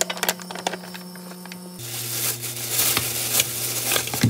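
Pot of aged-kimchi and pork-belly stew cooking: crackling and clicks over a steady hum. About two seconds in the hum drops lower and a louder hiss of simmering sets in.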